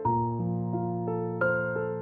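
Gentle electric piano background music, a new note struck about every third of a second, the chord shifting about one and a half seconds in.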